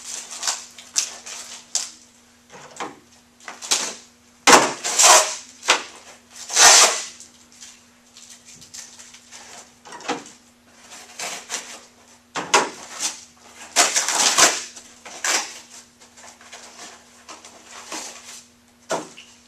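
Brown paper packaging rustling and crinkling in irregular bursts as an office chair's gas-lift cylinder is unwrapped by hand, over a faint steady hum.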